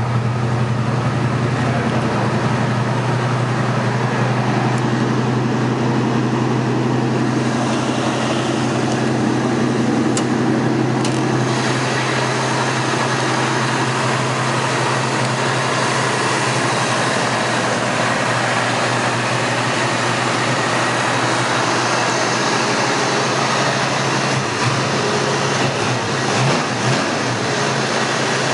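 1965 Ford Mustang's 289 V8 idling steadily.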